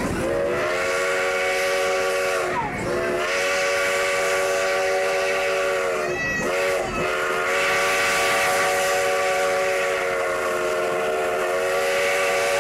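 Sierra Railway No. 28's steam whistle blowing for a road grade crossing as the train runs toward it. The whistle sounds in long blasts of several steady notes, with two brief breaks about two and a half and six and a half seconds in. The running train is heard underneath.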